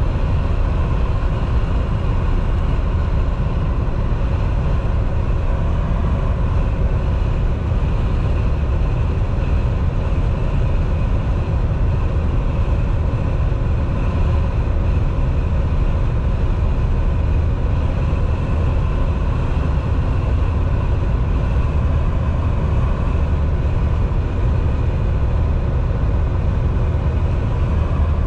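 Semi-truck cab at highway cruise: a deep, steady drone of the engine and road noise, unchanging throughout.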